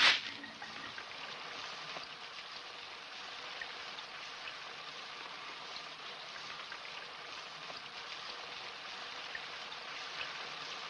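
Steady rain falling, an even hiss of a downpour with scattered drop ticks, following a brief cut-off of music at the very start.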